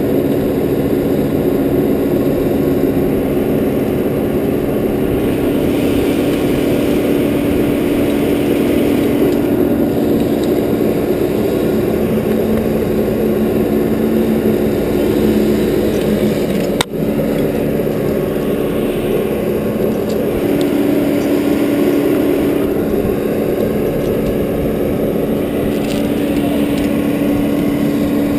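An engine running steadily at idle, with a single sharp click about two-thirds of the way through.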